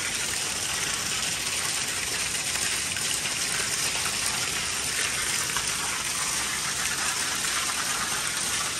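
Water gushing steadily from a pipe in the wall of an empty tiled pool and splashing onto the tile floor below.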